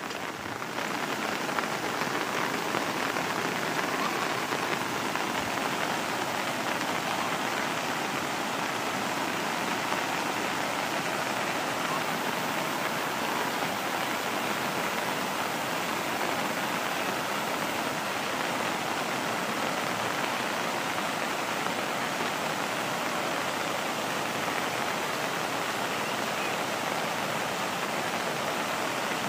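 Steady rush of a muddy river in flood: fast, turbulent water running past the bank without a break.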